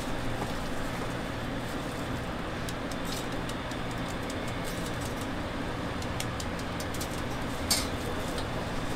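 Steady background rumble with a low hum, and a few faint clicks, the sharpest one near the end.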